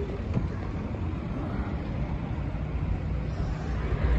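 Town street traffic: cars running along the road, heard as a steady low rumble of engine and tyre noise, briefly louder near the end.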